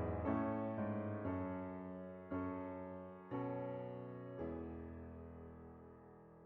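Background music: slow piano chords, struck every half second to a second. The last chord comes about two-thirds through and is left to ring and fade.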